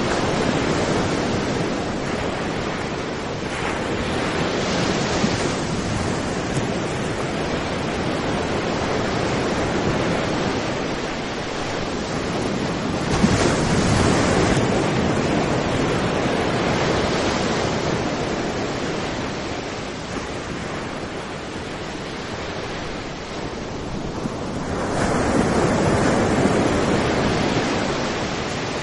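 Sea waves breaking and washing up a sandy beach: a continuous rushing surf that swells louder as each wave breaks, most strongly about halfway through and again near the end.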